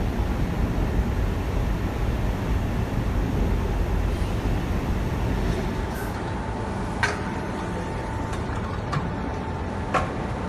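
Steady low machine noise of production machinery running. A little past halfway the sound changes abruptly: a steady hum-like tone appears, with three sharp clicks over the last few seconds.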